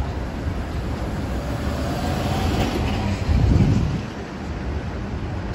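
Streetcar rumbling low and steady, with a louder low surge about three and a half seconds in.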